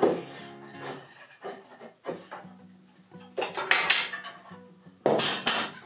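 Stainless steel suspension cables and their hardware being handled: a sharp metallic clink right at the start, then scraping and clinking bursts about two seconds in, around three and a half seconds, and again near the end as the cable is pulled through and adjusted. Faint background music underneath.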